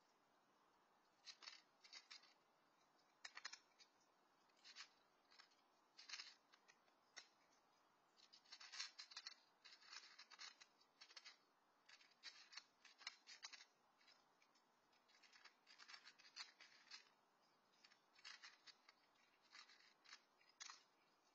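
A cat crunching dry kibble: faint, crisp crunches in irregular clusters, a few at a time with short pauses between.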